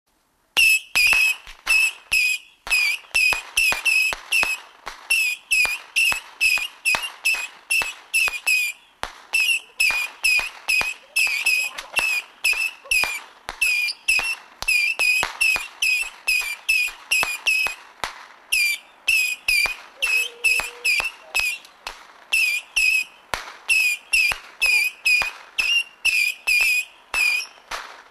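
A 200-shot whistling missile firework battery firing in rapid succession, about three shots a second. Each missile gives a short, shrill whistle with a sharp crack. It starts about half a second in and keeps firing with only brief gaps.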